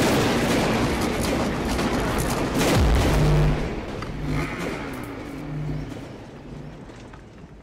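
Logo-reveal sound effects: a dense, rumbling explosion-like wash with a deep falling boom about three seconds in, then low tones that fade away.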